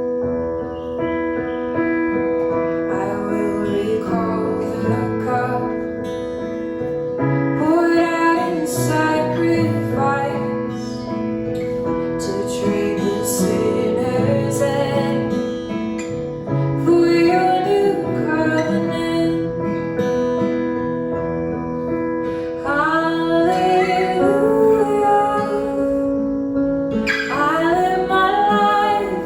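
A communion worship song, with a woman singing over guitar accompaniment.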